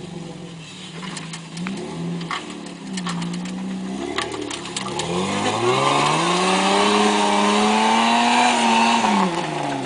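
Off-road 4x4's engine pulling under load, its pitch climbing from about four seconds in, held high, then easing off near the end. Scattered sharp knocks come in the first few seconds.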